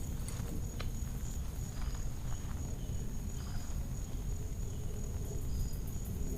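Steady high-pitched drone of insects, one unbroken tone with a few faint short chirps above it, over a constant low rumble.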